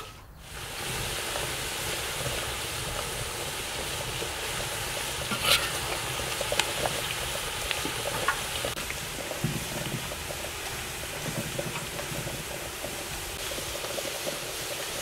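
Potato fries sizzling steadily in hot oil, with a few sharp pops and crackles.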